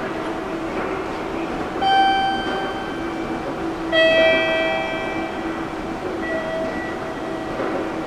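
A bell-like announcement chime: two struck tones about two seconds apart, the second lower and louder, each ringing out, over a steady low hum. A chime of this kind comes just before a spoken notice.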